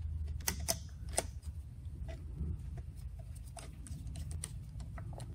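Scattered light clicks and ticks, irregularly spaced, as mounting bolts are threaded by hand through a fuel pump into an outboard engine's crankcase, over a low steady hum.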